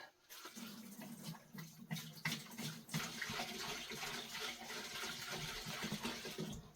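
Fresh solvent being poured into a parts-washer tank, a steady stream of liquid splashing in that starts just after the opening and stops shortly before the end.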